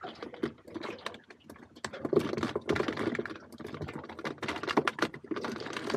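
Handling noise: a quick, irregular run of small clicks and rustles, denser from about two seconds in, as fingers thread cockle bait onto a fishing hook close to the microphone.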